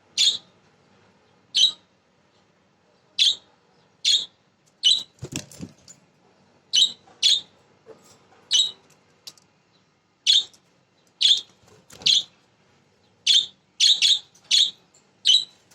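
Budgerigars giving short, sharp chirps, about one a second at uneven intervals, sometimes two in quick succession. A brief low rustle comes about five seconds in.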